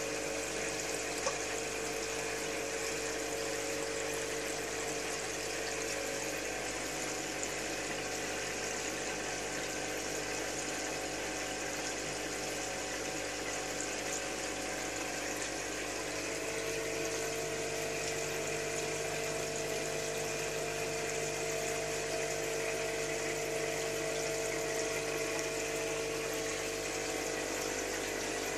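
Aquarium filter pump running steadily, with water bubbling and splashing at the surface and a steady motor hum.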